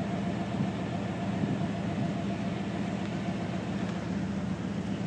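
Steady low mechanical hum with a constant rumble underneath, unchanging throughout, with no bangs.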